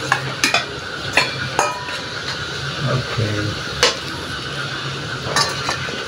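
A metal spoon scraping and clinking against a steel bowl and an aluminium wok as raw prawns are tipped into the pan, with several sharp clinks over a low, steady sizzle from the hot sauce.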